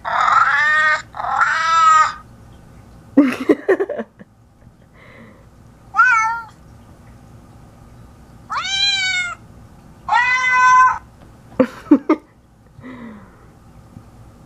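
A series of cat meows, about seven, several of them clean, evenly pitched meows played from a phone's human-to-cat translator app. Two lower, shorter, rougher calls come about three seconds in and about twelve seconds in.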